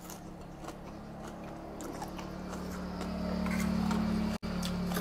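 Close-miked eating sounds of rice noodles in curry: the noodles are slurped in, then chewed with small wet clicks. A steady low hum runs underneath and grows louder about halfway through, and the sound cuts out for an instant near the end.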